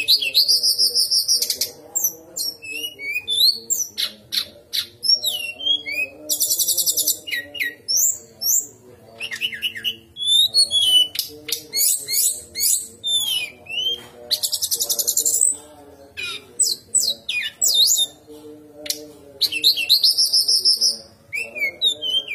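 Brown-chested jungle flycatcher singing in rapid, varied phrases: high fast trills, buzzy rattling runs and short whistled notes that slide up and down, with brief gaps between phrases.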